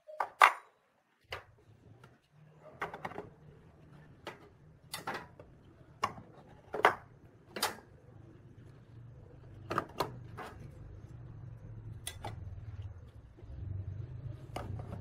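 Steel wrenches and other hand tools clinking and knocking as they are set down one by one into a plywood toolbox, about a dozen irregular clinks over a low steady hum.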